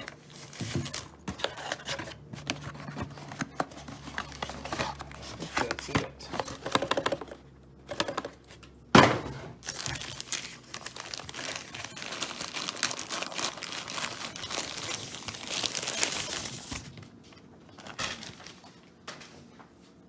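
Crinkling and rustling of packaging as a camcorder's white protective wrap and cardboard box are handled and the wrap is pulled off, with many small clicks. A single sharp knock about halfway through is the loudest sound, followed by a longer stretch of denser rustling that dies down near the end.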